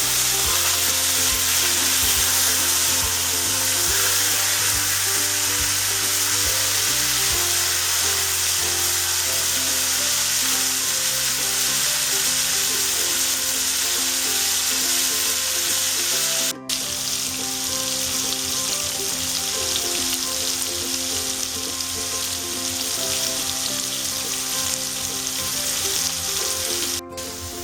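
Cut potatoes sizzling steadily as they fry in hot oil in a kadai, with soft background music underneath. The sizzle breaks off for an instant twice, once midway and once near the end.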